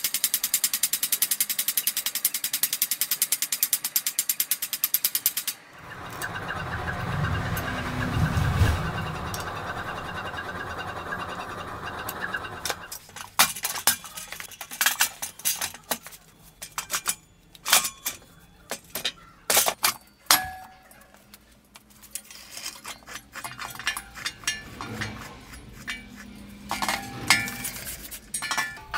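Rapid, even hammer blows on hot steel held against a cast iron swage block, about five or six a second, stopping abruptly about five seconds in. After about seven seconds of a steady rushing sound, scattered heavy metal clanks and knocks follow as the cast iron swage block is lifted, turned and set down in its steel stand.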